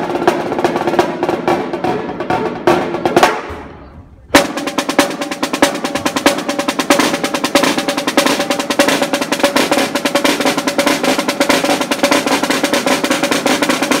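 Marching snare drums played in a solo battle: fast rolls and accented rudiment patterns, breaking off about three and a half seconds in. After a short gap a sharp accent starts a dense, unbroken run of rapid strokes that lasts to the end.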